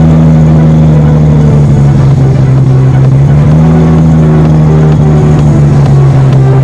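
Fourth-generation Toyota Supra's straight-six engine running steadily at the exhaust tip, its pitch rising slightly about halfway through.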